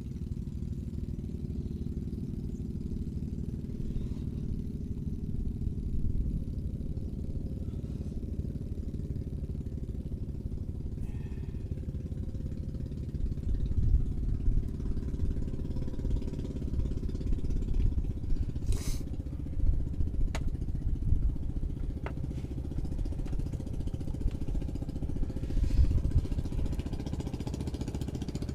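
A small engine running steadily with a low, rapid throb that swells a few times, and a few sharp clicks in the second half.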